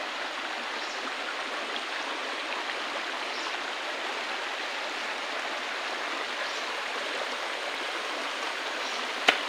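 Shallow stream running over rocks and pebbles: a steady rush of water, with a single sharp click near the end.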